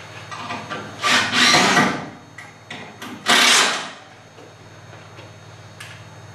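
Two loud scraping rubs, about a second each and two seconds apart, with a few light knocks between them and one more near the end.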